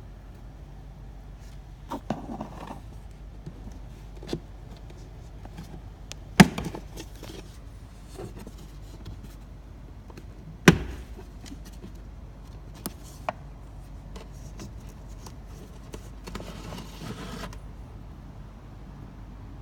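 Handling sounds during a car cabin air filter change: scattered clicks and knocks, two of them much louder about six and eleven seconds in, and a stretch of rustling near the end, over a steady low hum.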